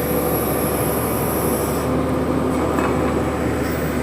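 Horizontal directional drilling rig running steadily: a loud, even mechanical drone of its engine and hydraulics. A faint high whine cuts out about halfway through.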